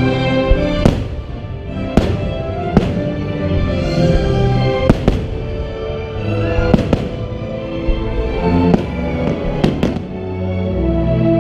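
Fireworks bursting overhead, about ten sharp bangs at uneven intervals, over loud music playing along with the show.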